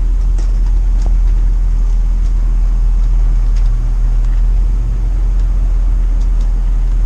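Steady low rumble of a vehicle running, heard from inside the cab, with a few faint ticks.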